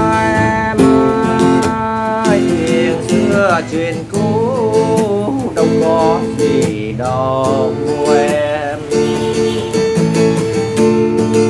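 Budget student acoustic guitar with a spruce top and laminated back, played solo: a fingerpicked improvised melody over ringing bass notes, with bent notes and vibrato.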